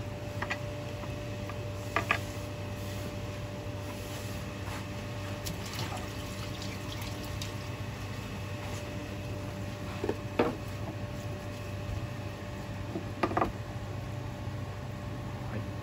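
Water running for a few seconds, as at a kitchen sink, over a steady low hum. There are a few light knocks about two, ten and thirteen seconds in.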